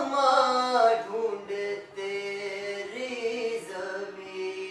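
A young man singing solo without accompaniment, holding long, steady notes that slide from one pitch to the next.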